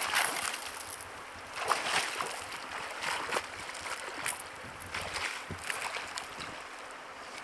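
Water sloshing and splashing irregularly.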